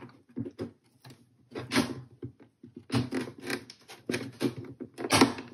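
Plastic parts of a VW instrument cluster being handled and pressed together as a small connector is fitted: a few short scrapes, rubs and clicks in irregular bursts, with brief pauses between them.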